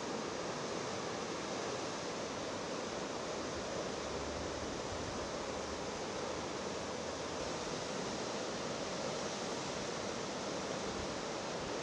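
Floodwater rushing: a steady, unbroken noise of moving water.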